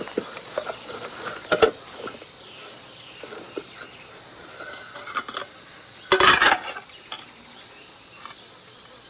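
Steady chirring of crickets, with a couple of soft clicks and one short, louder clatter about six seconds in as a covered dish is handled and checked.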